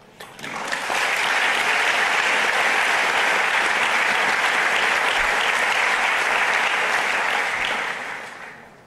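Large seated audience applauding: the clapping swells within the first second, holds steady, and dies away near the end.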